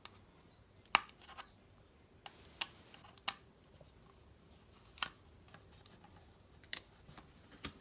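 Scattered light clicks and taps, about seven in all, from a small cardboard box and its packaging being handled and turned over.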